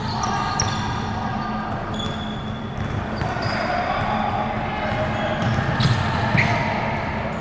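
Sounds of an indoor court game: a ball bouncing and short high-pitched squeaks, with voices in the background.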